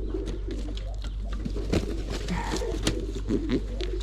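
Pigeons cooing steadily in the loft, with a few sharp clicks and knocks in the second half.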